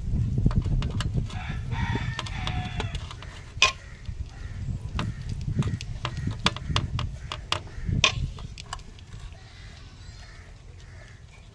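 A rooster crowing once, from about one to three seconds in, over low handling noise. There are two sharp knocks a few seconds apart, the first soon after the crow and the second near the middle.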